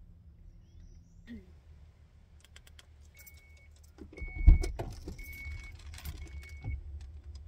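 Rattling and clicking with a heavy thump about four and a half seconds in, while an electronic beeper sounds four short, evenly spaced beeps about a second apart.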